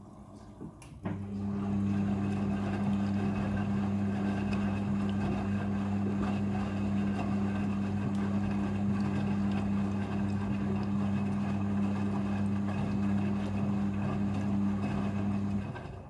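Midea front-loading washing machine running its first rinse: a click about a second in, then a steady electric hum as the drum turns the wet towels. The hum stops just before the end.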